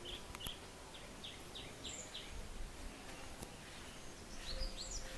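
Faint calls of garden birds: scattered short, high chirps, with a quick run of about five falling notes about one and a half seconds in and another cluster of chirps near the end.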